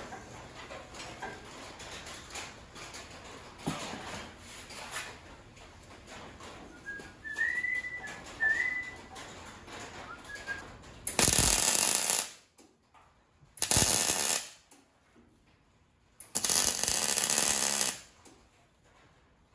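Light clinking of steel parts as a spring-loaded latch rod is fitted by hand, then three tack welds: bursts of arc crackle about a second, under a second, and nearly two seconds long.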